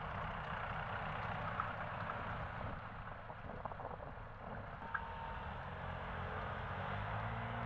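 Steady road traffic noise, with the low hum of vehicle engines running slowly while waiting at the lights. The engine hum grows steadier and fuller near the end as traffic begins to pull away.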